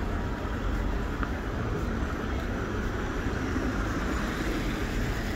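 Steady city street noise: a continuous low rumble of traffic under an even hiss, with no single event standing out.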